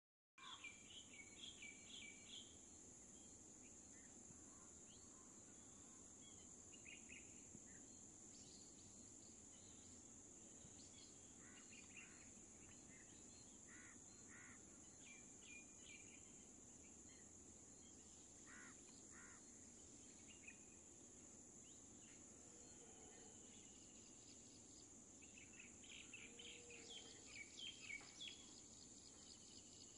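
Faint countryside ambience: a steady high-pitched insect drone with scattered bird chirps and calls, busiest near the start and again in the last few seconds. It cuts in suddenly just after the start.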